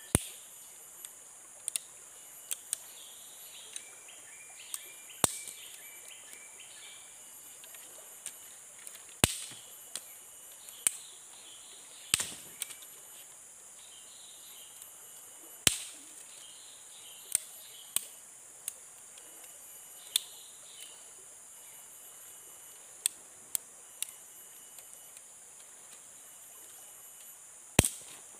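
Wood being chopped with a blade in single sharp strikes, one every one to four seconds at an uneven pace. A steady high insect drone carries on underneath, with bird chirps now and then.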